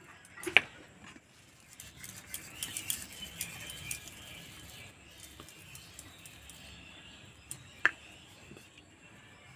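Hands rolling a sticky sesame-and-jaggery mixture into balls: soft rubbing and pattering, with two short sharp clicks, one about half a second in and one near the end.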